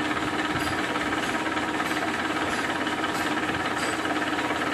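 Milling machine running steadily, its spindle turning a twist drill that bores into a black POM (acetal) plastic disc; an even mechanical hum with a few constant tones.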